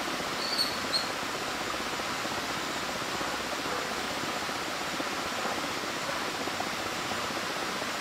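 Whitewater rapids rushing steadily, an even hiss of turbulent river water. Two short high chirps sound about half a second and one second in.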